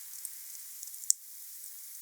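Wood fire burning: a steady hiss scattered with small crackles, and one sharp pop about a second in.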